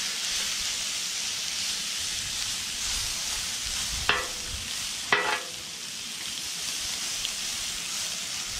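Shredded hash browns and sausage patties sizzling steadily on a Blackstone flat-top griddle. A metal spatula clanks and scrapes on the steel cooktop twice, about four and five seconds in.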